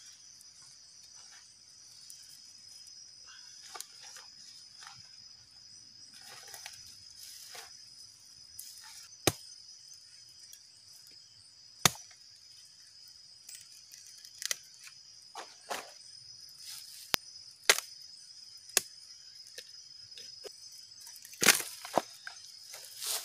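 A steady, high-pitched insect chorus of crickets or cicadas, broken by a dozen or so sharp cracks and knocks at irregular intervals, the loudest near the end.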